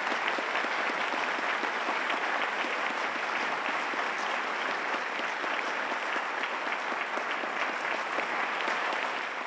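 Concert-hall audience applauding steadily, many hands clapping at once, to welcome the conductor onto the stage. It starts to die away at the very end.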